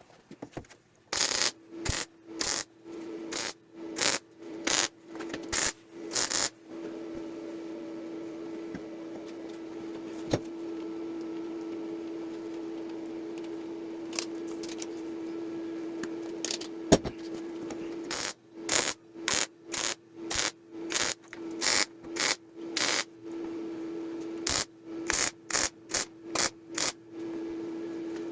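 Repeated rubbing or scraping strokes, about two a second, as from hand sanding or scrubbing a surface. The strokes pause for roughly ten seconds in the middle while a steady hum carries on.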